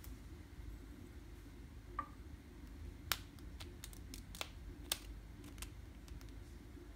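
Sharp plastic clicks and taps from a lipstick tube being handled and twisted up, about seven or eight spread from two seconds in, over a low steady hum.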